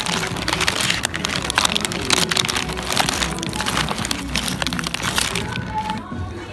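Dense, irregular crinkling and crackling, like a paper or plastic shopping bag being handled close by. It eases off about six seconds in. Faint store music plays underneath.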